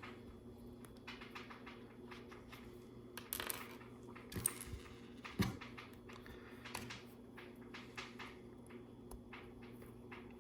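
Small plastic LEGO pieces clicking and clattering as they are handled and pressed together, with a short rattle about three seconds in and a couple of louder clicks a little later.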